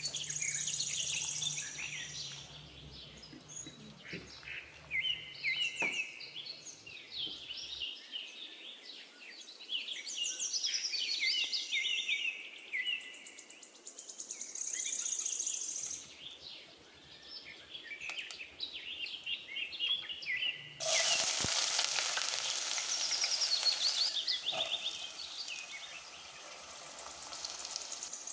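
Birds chirping repeatedly in the background. About three-quarters of the way in, chopped vegetables hit a hot pot with a sudden loud sizzle, which eases after a few seconds and keeps frying more quietly.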